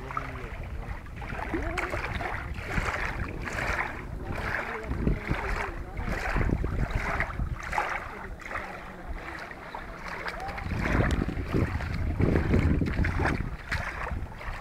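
Wind buffeting the microphone in gusts, strongest late on, over small waves lapping at the lake shore.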